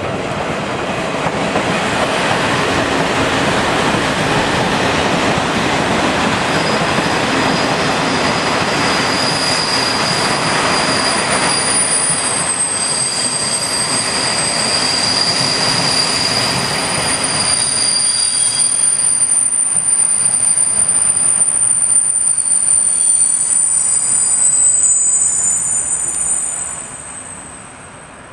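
Passenger coaches of an arriving express train rolling along the platform, braking, with several high steady squeals from the wheels. The rolling noise and squeal die away suddenly near the end as the train comes to a stop.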